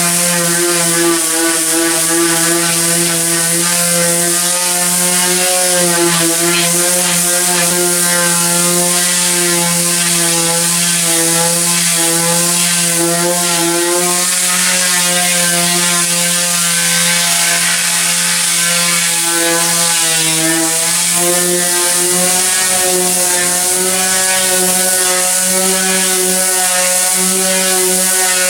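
Corded electric sander running steadily against a car roof, abrading old sun-baked paint: a constant motor hum over a scratchy hiss. Its pitch sags briefly about twenty seconds in.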